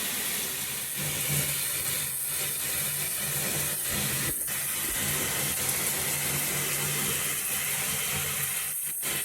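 Water spraying steadily from a Hansgrohe 2.5 gallons-per-minute rain shower head, a full even hiss with a faint low hum underneath.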